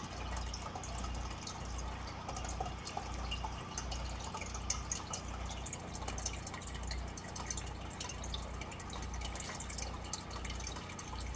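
Water trickling and dripping in a small aquarium, with fine bubbling crackle and a low hum that pulses evenly, a little faster than once a second.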